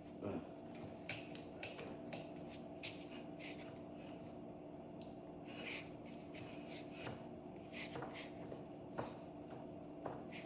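Light clicks and rubbing of parts and tools being handled, with one sharp click about four seconds in, over a steady low hum.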